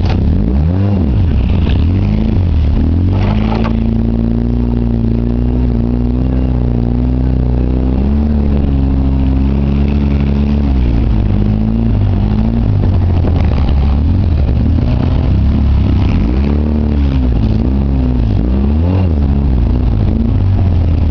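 2009 Polaris Ranger RZR 800's twin-cylinder engine running under way. Its pitch dips and climbs again several times as the throttle is eased off and reapplied, with a steadier stretch in the middle.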